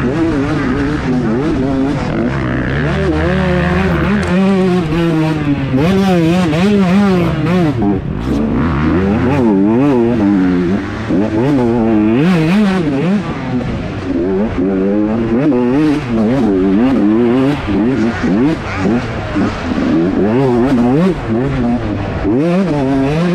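Several 125cc motocross bikes racing, their engines revving hard and dropping back over and over as the riders work the throttle and shift through the track.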